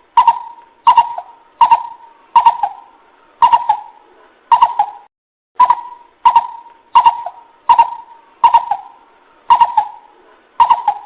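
Coucal hooting call played as a lure: a run of short, deep, hooting notes on one steady pitch, about one to one and a half per second, with a short pause midway. Each note starts abruptly with a hard click.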